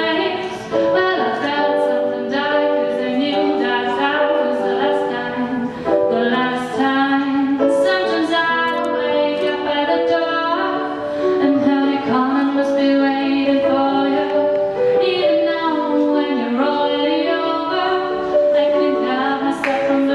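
A woman singing a slow pop ballad live, accompanied by piano.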